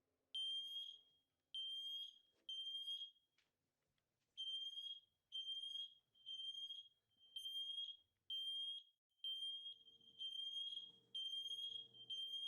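Siterlink GS-888C-D combination smoke and carbon monoxide alarms sounding on test: a high-pitched beep, three times with a short pause after, then repeating about once a second. The alarms are wirelessly interconnected, so pressing test on one sets them all off together.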